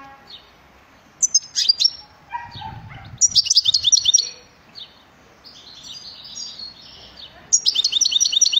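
European goldfinch singing: bursts of rapid, high twittering phrases, loudest about three seconds in and again near the end, with softer twittering between.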